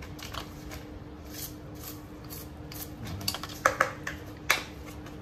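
Small plastic clicks and knocks as a plastic plant pot and its plastic saucer are handled, with three sharp clacks between about three and a half and four and a half seconds in.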